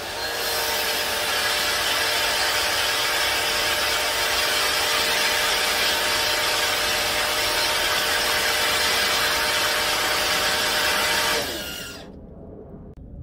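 Pressure washer running, spraying through a water-broom attachment onto concrete: a steady hiss of water over the machine's hum. Near the end the hum falls in pitch and the machine winds down and stops.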